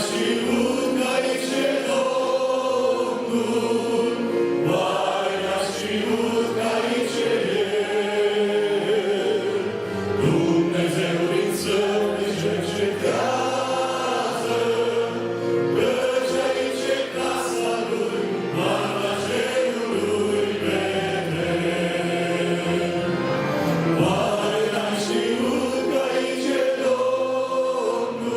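A choir singing a hymn in Romanian, several voices together holding long phrases.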